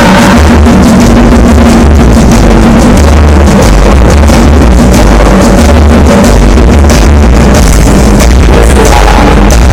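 Very loud music played through a mobile disco sound system, with heavy, deep bass.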